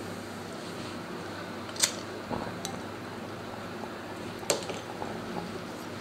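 Steady low hum of a bar room with two sharp clicks about two and a half seconds apart, from a glass and lighter being handled as rum, mint and sugar are flamed in the glass.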